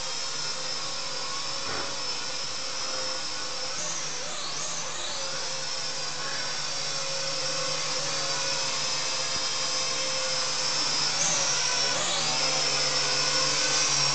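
SNAPTAIN S5C quadcopter's small electric motors and propellers whining steadily in flight. The pitch swoops up and back briefly about four seconds in and again about eleven seconds in as the throttle changes. It grows louder near the end as the drone comes close.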